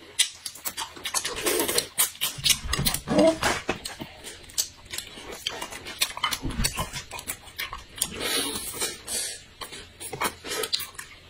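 Crayfish being peeled and eaten: shells cracking, with sucking and chewing clicks. Short whimpering calls from a dog come in between.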